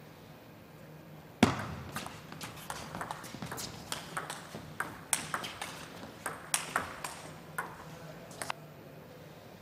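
Table tennis rally: a loud sharp hit about a second and a half in, then a quick, irregular run of sharp clicks as the ball strikes bats and table, which stops near the end.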